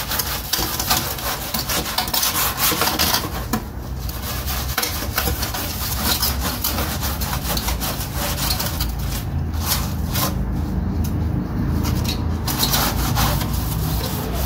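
Fast back-and-forth scrubbing on a greasy metal gas-grill plate: a steady rasping scrape. It eases off briefly about four seconds in, and again for a few seconds past the middle.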